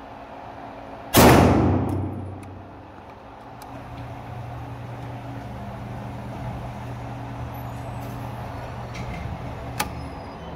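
A single 9mm pistol shot from a Canik TP9 SFX about a second in, loud and echoing around the indoor range. Then an electric target-carrier motor runs steadily as the paper target is brought back up the lane, with a sharp click near the end.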